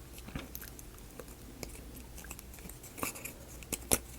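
Small wooden model-kit pieces clicking and tapping as they are handled and pressed into place, a few scattered sharp clicks, the loudest near the end.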